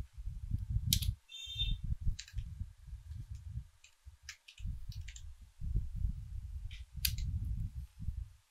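Computer keyboard keys tapped one by one as a command-line option is typed, heard as a dozen or so separate clicks. Under them runs a low, uneven rumble, and a short high-pitched tone sounds about a second and a half in.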